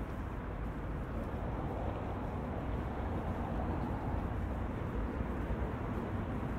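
Steady outdoor ambience: a continuous low rumble with an even hiss over it, no distinct events standing out.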